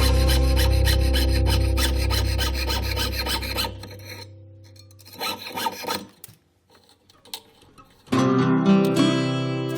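Metal being filed by hand in short rasping strokes over acoustic guitar background music. The music fades out about four seconds in, leaving a few strokes on their own, and comes back about two seconds before the end.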